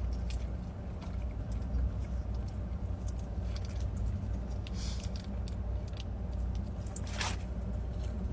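Steady low hum of a running vehicle engine. Scattered light clicks and a short rustle about seven seconds in sit on top of it.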